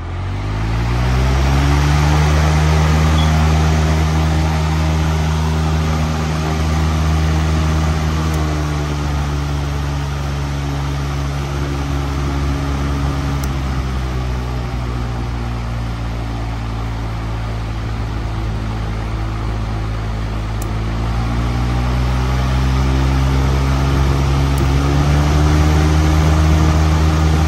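Patton U2-20CN fan's electric motor starting up and spinning up to speed over the first second or two, then running with a steady hum and rush of air. The hum's pitch sags a little in the middle and climbs back near the end.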